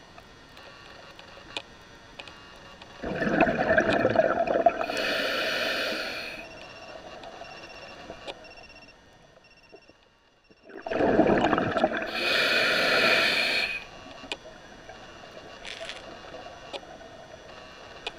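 A scuba diver breathing through a regulator: two breaths about eight seconds apart, each a burst of bubbling lasting about three seconds that ends in a sharper hiss.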